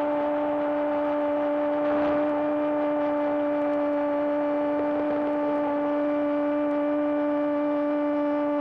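A football commentator's long, drawn-out shout of "gooool", held on one steady pitch without a break, over crowd noise.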